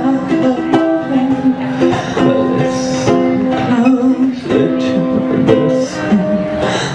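Ukulele strummed in a steady rhythm with a voice singing along, holding long notes over the chords.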